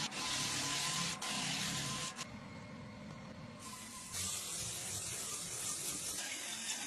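Parquet floor sanding machine running: a steady hiss over a low rumble that changes abruptly several times.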